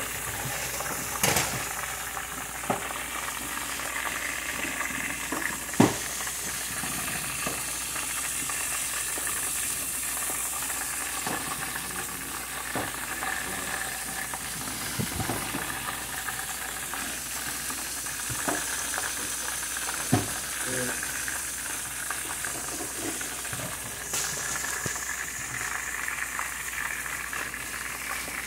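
Breaded chicken wings frying in hot oil in a pan: a steady sizzle, broken by a few sharp knocks. The loudest knock comes about six seconds in.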